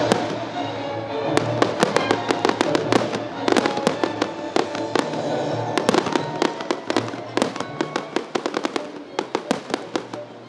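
Rapid volleys of firework bangs and crackles over music. The bursts start about a second and a half in and come thick and fast in clusters.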